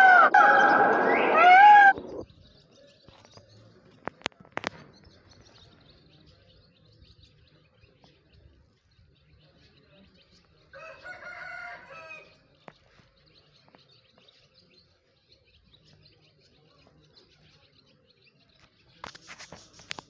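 Indian peacock giving its loud, drawn-out honking call, which ends about two seconds in. A fainter, shorter call follows about eleven seconds in, with a couple of sharp clicks between them.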